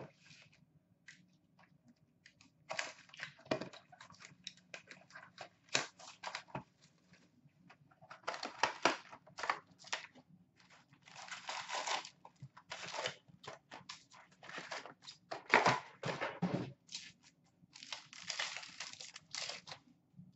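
Hockey card pack wrappers being torn open and crinkled, with cards shuffled out, in irregular bursts of tearing and rustling.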